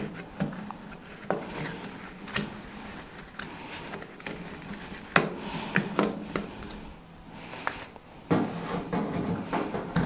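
Hands peeling packing film and tape off a new stainless-steel air fryer toaster oven: rustling and rubbing with scattered sharp clicks and taps against the oven's body, the loudest about halfway through.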